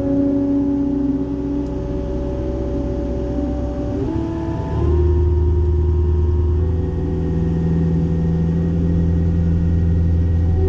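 Cat 262D skid steer's diesel engine running steadily with a whine, driving a Loflin open-front brush cutter. About four to five seconds in the pitch steps up and the sound grows louder and deeper.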